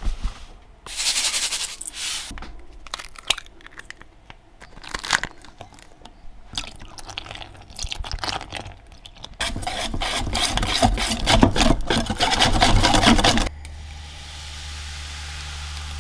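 Pancake batter being prepared by hand in a kitchen: irregular knocks, scrapes and crackles from utensils and a bowl. A denser, louder stretch of scraping and crackling comes later, cuts off suddenly, and gives way to a steady low hum.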